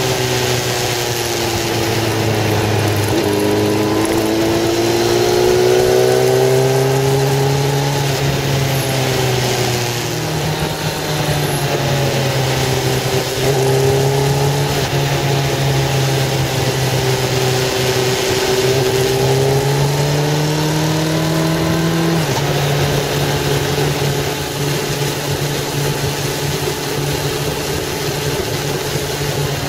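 Car engine heard from inside the cabin while driving on a winding road. Its pitch rises as it accelerates and falls when the throttle eases, with sudden drops about 3, 10 and 22 seconds in, all over steady road noise.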